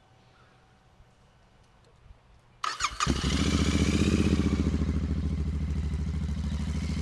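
Royal Enfield Continental GT650's parallel-twin engine cold-started through Gursewak slip-on exhausts with the dB killers fitted. The starter cranks briefly about two and a half seconds in, then the engine catches and settles into a steady, evenly pulsing idle.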